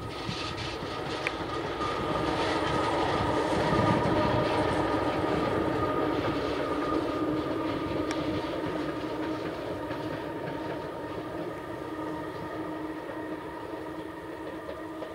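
VL11 electric locomotive passing, a steady whine over a running rumble that swells to its loudest a few seconds in and then slowly fades as it moves away.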